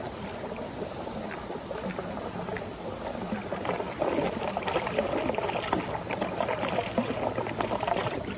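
Running water splashing and gurgling in a steady rush, louder from about four seconds in.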